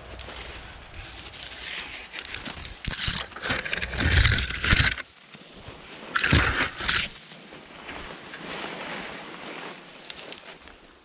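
Rustling and brushing noise of people pushing through forest undergrowth, in louder bursts about three, four and six seconds in, some with a low thump.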